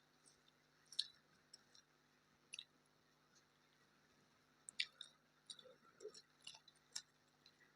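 A person chewing food with the mouth, faint, with scattered soft wet clicks and smacks at irregular intervals.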